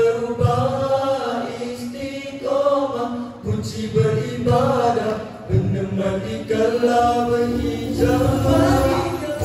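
Male nasyid vocal group singing in harmony over hand-drum accompaniment, with long held sung notes and drum strokes underneath.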